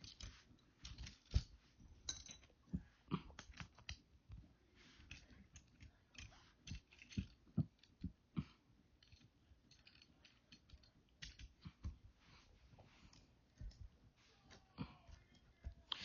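Plastic toy robot figure parts being pulled apart and handled: irregular sharp clicks and snaps of plastic joints and pegs, the loudest about a second and a half in.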